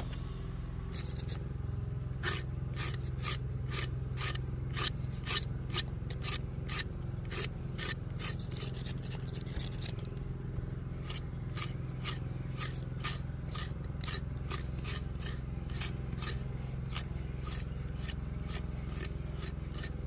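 Quick repeated scraping strokes, about two a second, starting about a second in, over the steady low hum of an engine running.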